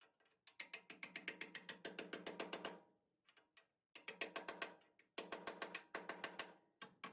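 A ratcheting shop tool clicking rapidly, about ten clicks a second, in several runs of one to two seconds with short pauses between them.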